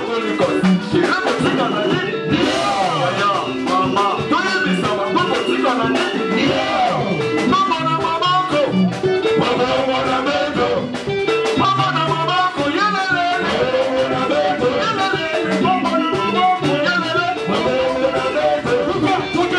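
Live Congolese band music through a PA: guitars and drums on a steady dance beat, with voices singing over it.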